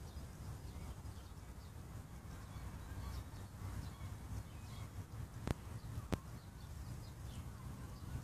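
Faint bird chirps over a steady low rumble on the microphone, with two sharp clicks a little over half a second apart just past the middle.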